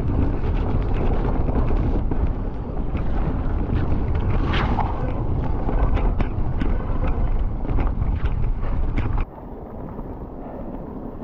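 Wind rumbling over a mountain bike rider's camera microphone as the bike runs down a wet trail, with tyre noise and frequent sharp clicks and rattles from the bike over bumps. About nine seconds in the noise suddenly drops to a quieter, calmer level.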